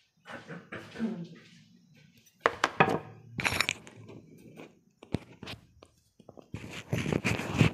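Packaging crinkling and rustling as it is handled, in irregular bursts, with a sharp knock about five seconds in.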